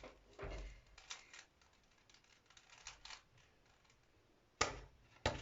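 Plastic Rubik's Cube layers being twisted while the cube is scrambled: faint, irregular clicks and rattles, with two sharper clacks near the end.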